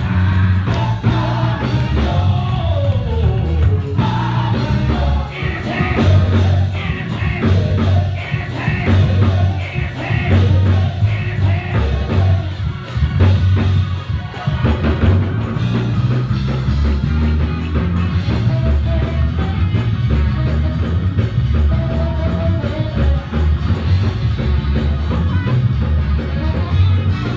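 Live gospel praise music from a church band: drum kit and heavy pulsing bass, with voices singing over it.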